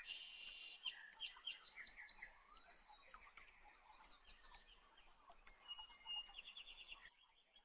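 Faint birdsong: small birds chirping with short repeated notes, including a quick trill of about eight notes a second near the end.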